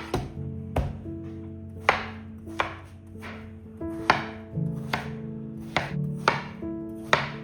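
Knife chopping on a cutting board, a sharp stroke about once a second, over soft background music.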